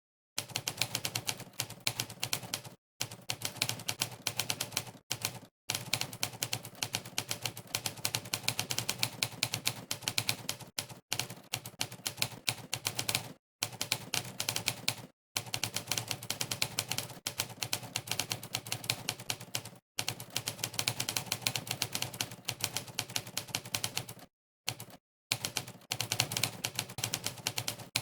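Monkeytype's typewriter keystroke sound effect: rapid clacks at fast typing speed, in runs broken several times by short dead-silent pauses.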